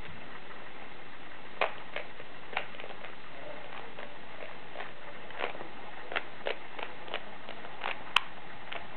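Plastic Rubik's Cube layers being turned fast during a speed solve: an irregular run of short, sharp clicks, the loudest near the end, over a steady background hiss.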